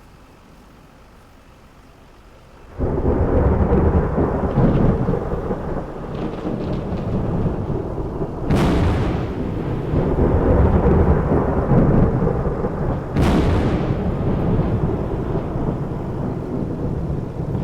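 Thunderstorm: loud heavy rain and storm noise that starts suddenly about three seconds in, with two sharp cracks of thunder about five seconds apart.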